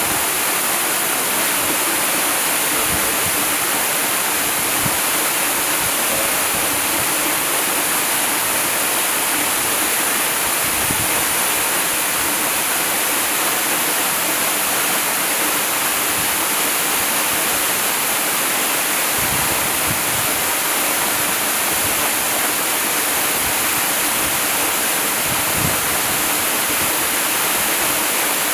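Waterfall: falling water crashing steadily in a dense, unbroken rush, strongest in the hiss range, with occasional low rumbles underneath.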